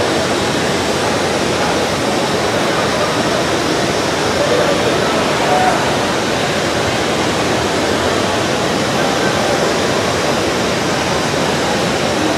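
Steady hiss of an oxygen-fuel glassworking torch flame heating borosilicate tubing, with faint voices underneath.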